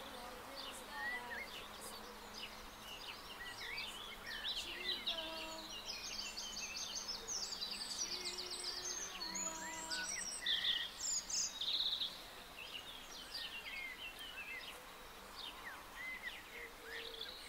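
Birds chirping and calling on all sides, with insects buzzing. A fast buzzing trill runs through the middle, and the loudest calls come about ten to twelve seconds in.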